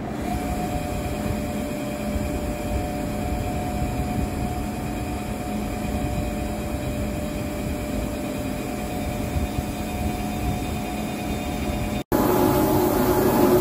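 Jewellery CNC engraving machine running: a steady hum with a constant high whine. About twelve seconds in it drops out briefly and a louder running sound takes over.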